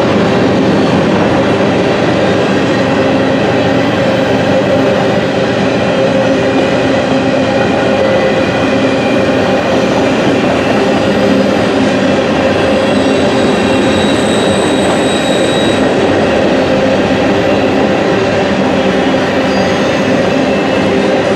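Empty grain hopper cars of a freight train rolling past: a steady, loud rumble of wheels on rail, with a faint high wheel squeal briefly in the middle.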